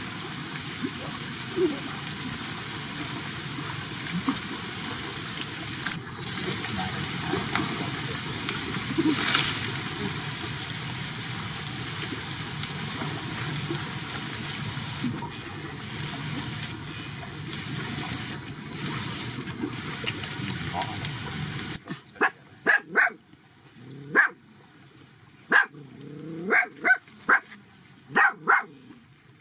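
A steady rushing background noise for most of the time, which cuts off abruptly; then young dogs barking in a series of short, sharp yaps over the last several seconds.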